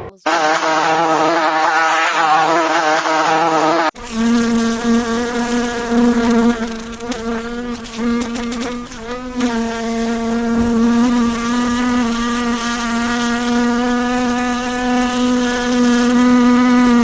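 A flying insect's wings buzzing. The buzz wavers in pitch for the first few seconds, then cuts abruptly to a steadier, even buzz that holds to the end.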